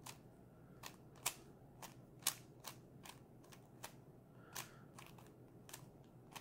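Faint, irregular clicks of a stickerless plastic speed cube's layers snapping round as it is turned by hand, about a dozen turns at roughly two a second.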